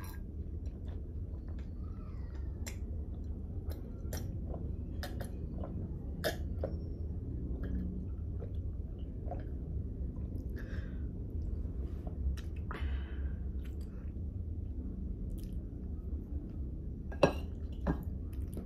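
Close-miked drinking from a glass: scattered small mouth clicks and soft swallowing sounds over a steady low hum, with one sharper click near the end.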